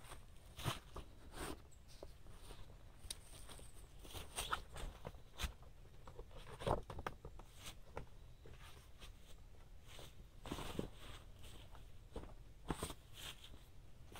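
Irregular rustling, clicks and light knocks of camping gear being handled and unpacked, with a few louder knocks spread through.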